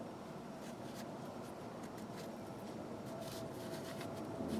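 Soft, irregular scratching and rubbing strokes of a small ratchet part being cleaned by hand.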